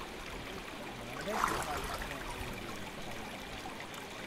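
Steady rush of flowing stream water, with a brief louder swell about a second and a half in.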